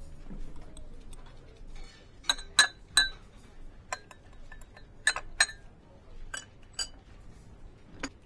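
A teaspoon clinking against a porcelain coffee cup as coffee is stirred: about nine sharp, ringing clinks, several in quick pairs, starting about two seconds in.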